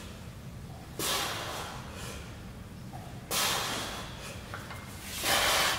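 A man breathing out hard with each press of heavy dumbbells on an incline bench: three sharp, hissing exhales about two seconds apart, the last one the longest and loudest as the set nears failure.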